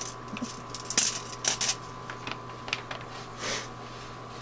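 Small metal carburetor parts and hand tools clicking and rattling as they are picked through on a workbench, with the sharpest click about a second in and a brief rustle near the end.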